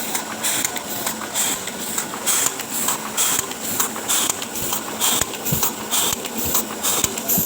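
Oliver 72 sheet-fed offset printing press running, a regular rhythm of hissing pulses a few times a second over a steady mechanical hum as the sheets go through during a colour pass.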